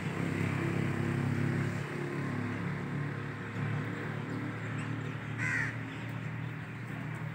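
Crows cawing, with a short call about five and a half seconds in, over a low steady hum in the first few seconds.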